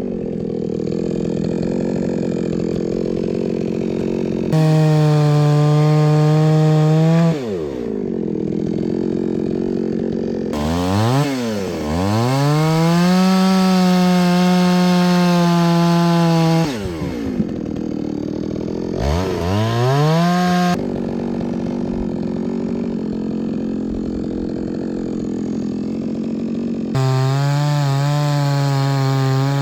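Petrol chainsaw idling and revving to full throttle four times as it cuts firewood logs, its pitch sagging and recovering as the chain bites.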